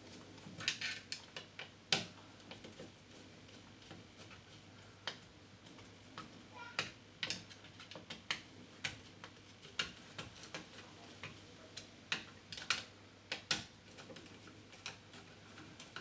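Screwdriver undoing the brass terminal screws on the back of a double mains wall socket: a run of small, irregular clicks and ticks, a few a second.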